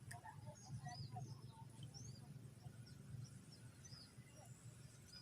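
Faint birdsong: many short, high chirps from small birds, more of them in the first half, over a low steady background rumble.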